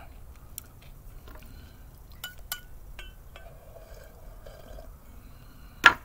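Chopsticks clinking against a small metal saucepan of soup: a few light clinks, some with a brief metallic ring, then one sharp, loud clink near the end.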